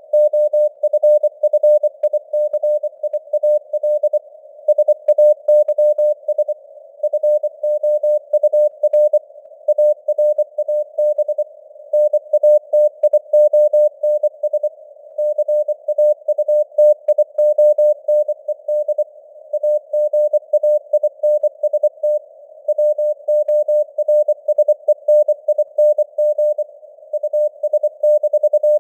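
Morse code (CW) sent at 24 words per minute, a single steady tone keyed on and off in dots and dashes with short pauses between words. The tone rides over simulated radio hiss that fills the gaps, with a gently varying signal strength (QSB).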